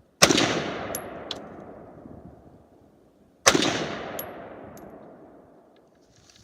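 Two rifle shots about three seconds apart, each followed by a long rolling echo that dies away. A few faint sharp ticks follow each shot.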